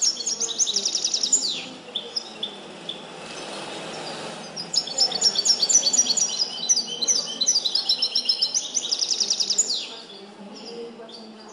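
European goldfinch (chardonneret) singing a trained 'limpio' song: quick runs of rapidly repeated high notes and trills. It sings a short phrase at the start, pauses, then a longer phrase from about five seconds in that stops about ten seconds in.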